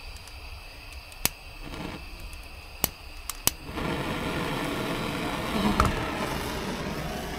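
Handheld gas blowtorch: several sharp clicks of the igniter, then about four seconds in the flame catches and burns with a steady hiss, heating a seized bolt. A single brief knock about two seconds after the flame lights.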